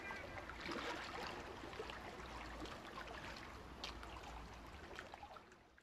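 Faint water sound, splashing and trickling with small crackles, slowly fading out near the end.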